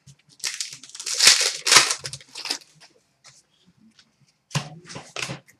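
Trading cards and their packaging being handled: a run of short rustling, crinkling bursts, loudest about one to two seconds in, with a few more near the end.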